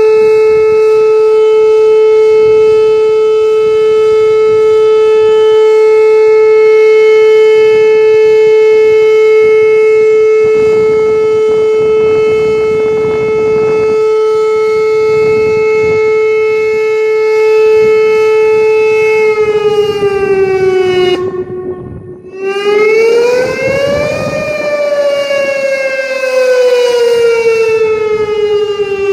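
Whelen outdoor tornado warning siren sounding a test: it holds one steady tone for about nineteen seconds, then slides down in pitch and briefly cuts out. It then switches to a wail that slowly rises and falls.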